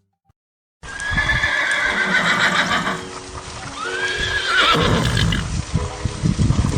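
A horse neighing twice, a long falling whinny about a second in and a shorter rising-and-falling one around five seconds, with low thudding hoof sounds in the second half.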